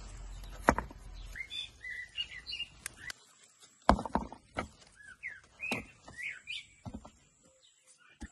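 Small birds chirping over and over in short calls, with several sharp thuds as ripe tomatoes are dropped into a wooden bucket, the loudest about a second in and about four seconds in.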